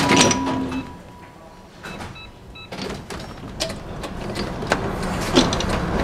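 Cab sound of a DÜWAG Kurbelwagen tram: a steady hum stops just under a second in, then sharp clicks come as the crank controller is notched round, and the tram's running noise grows louder as it picks up speed.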